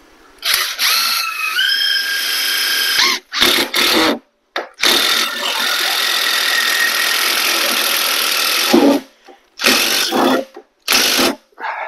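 Power drill driving self-tapping screws into the steel bars of an IBC tote cage. A first run of about two and a half seconds, its motor whine stepping up in pitch, is followed by two short bursts, then a steady run of about four seconds and two more short bursts near the end.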